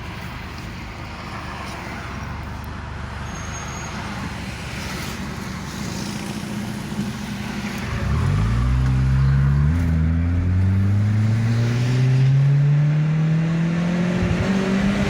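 Second-generation Kia Sportage with a sports exhaust diffuser, running at a steady low rumble for about half the time, then accelerating hard, the engine note climbing steadily and getting louder.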